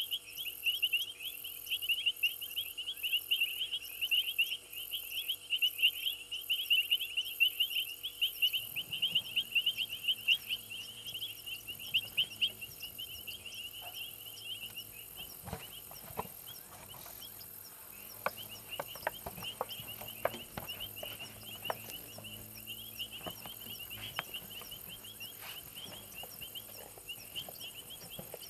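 Night chorus of frogs and insects: rapid, high-pitched chirping calls overlapping densely, over a thin, high insect buzz. From about nine seconds in, a low hum and scattered sharp clicks join.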